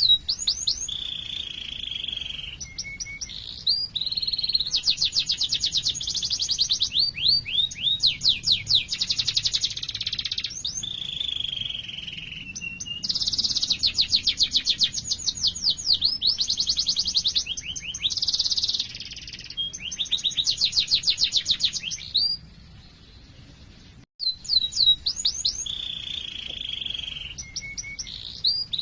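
Domestic canary singing a long song of fast rolling trills and chirps, with held whistled notes between phrases. It stops for a moment about two-thirds of the way through, then starts again.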